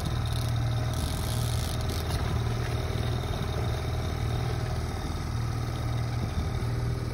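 Mercury outboard motor running steadily at trolling speed, a constant low drone that pulses slightly.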